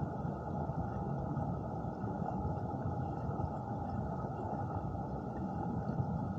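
Steady, muffled rush of flowing stream water heard underwater, with no separate splashes or knocks.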